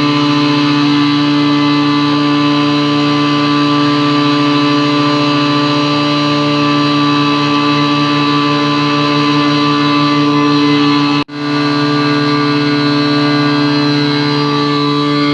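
Tohatsu V50 Rabbit fire pump engine running steadily at a constant high speed under test. There is a momentary break in the sound about eleven seconds in.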